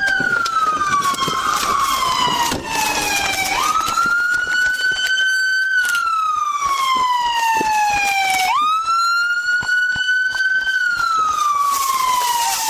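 Police car siren on a wail cycle: each pitch jumps up quickly, then glides slowly down over about five seconds before rising again.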